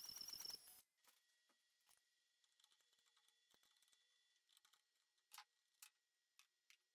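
CNC router spindle running with a high warbling whine, cut off abruptly under a second in. Then near silence with a few faint scattered clicks as hands clear wood chips around the bit.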